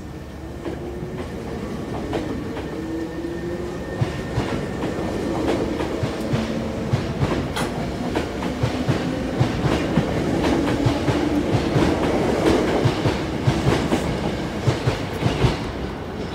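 Hankyu 6300-series Kyo-train pulling out and gathering speed: the motor whine rises in pitch as the cars roll past, and the wheels clack over rail joints faster and faster. The sound grows louder and drops away as the last car clears.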